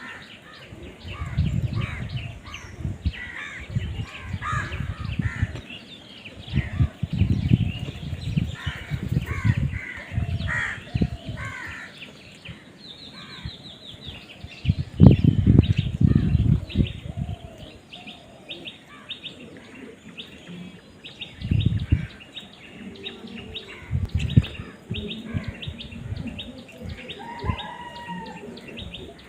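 Many birds chirping and calling in quick, overlapping short notes, interrupted several times by brief low rumbling bursts.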